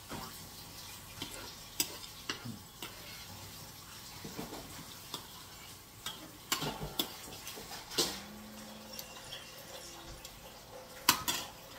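Eating sounds: a spoon and fork clicking and scraping on a plate, with scattered small taps, over a faint steady hiss.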